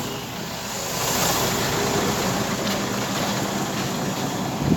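Steady rumble of an idling truck engine, mixed with wind noise on the microphone.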